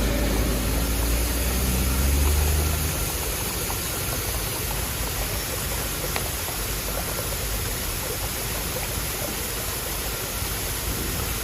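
A vehicle engine running low, fading away about three seconds in, then a steady hiss of heavy rain.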